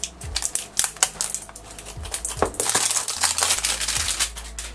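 A small cardboard blind box being opened by hand and the crinkly clear plastic wrapper on the toy inside being handled. It makes sharp clicks and crackles, with a denser stretch of crinkling about two and a half seconds in.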